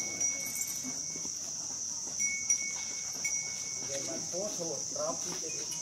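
Steady high-pitched insect drone, with a thinner high tone coming and going over it. Faint voices join about four seconds in.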